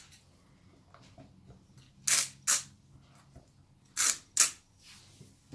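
Salt jar shaken over zucchini slices: two pairs of short, crisp rattling shakes, about two and four seconds in.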